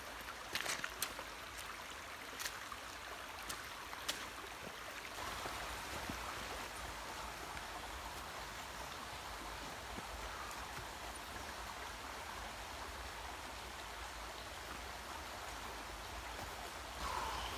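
Shallow rocky stream running with a steady rushing wash of water. A few sharp ticks come in the first four seconds.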